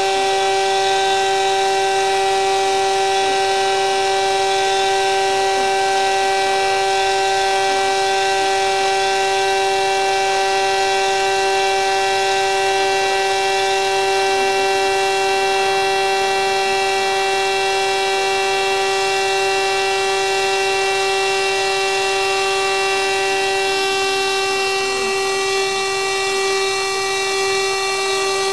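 Electric carpet shearing machine with its dust-extraction vacuum hose attached, running steadily as it trims the pile of a tufted rug: a constant high whine with many overtones.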